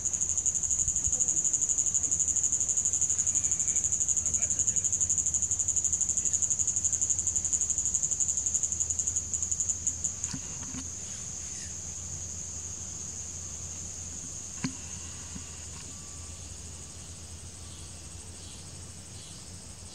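A forest insect calling: a loud, high-pitched, fast-pulsing trill. It breaks up into a few separate pulses about halfway through and fades out, leaving a quieter background with one faint click.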